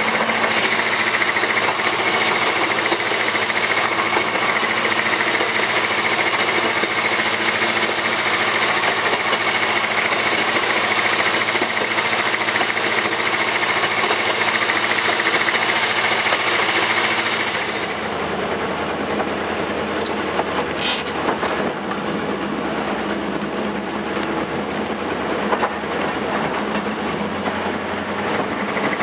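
Narrow-gauge diesel locomotive under way, heard from aboard: its engine runs steadily over the noise of the wheels on the track. A little past halfway the sound drops to a lower, quieter level.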